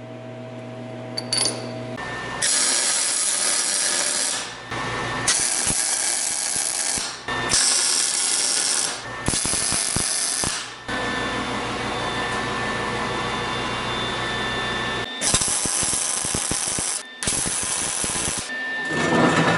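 Arc welding on steel: a series of crackling, hissing weld runs of one to four seconds each, separated by short breaks, starting a couple of seconds in.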